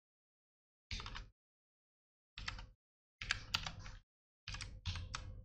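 Typing on a computer keyboard in four short bursts of keystrokes, with dead silence between them.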